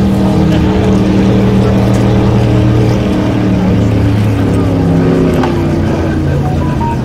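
Racing ski boat engines running flat out as the boats pass at speed, a steady loud drone that drops slightly in pitch after about four seconds.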